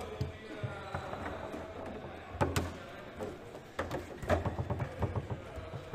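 Foosball being played on a Leonhart table: sharp knocks and clacks of the ball and rods, loudest about two and a half seconds in and in a quick cluster just before and after four seconds, over the murmur of onlookers' voices.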